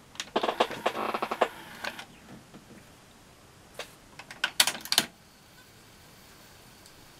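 Technics RS-CH510 cassette deck's front buttons and tape transport mechanism clicking and clattering in two bursts, the first about a fraction of a second in and the second near five seconds in, as the deck is operated and put into play.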